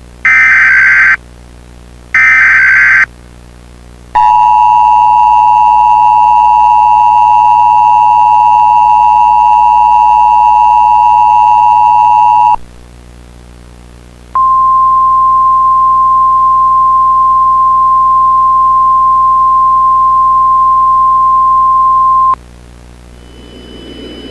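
Emergency Alert System tones. First come the last two bursts of the SAME digital header, each a buzzy data screech about a second long. Then the two-tone EAS attention signal holds steady for about eight seconds, and after a short pause the single-pitch NOAA Weather Radio warning alarm tone holds for about eight seconds. Together they open an emergency alert broadcast.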